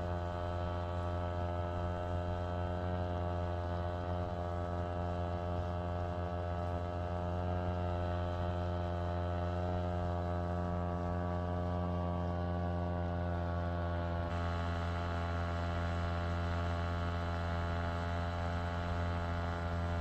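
Small 2 hp Yamaha outboard motor running steadily under way, a constant buzzing hum that holds one pitch throughout.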